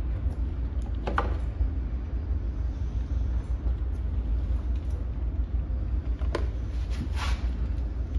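A steady low rumble runs underneath a few light clicks and rustles from wires with metal ring terminals being handled. One click comes about a second in, and two more come near the end.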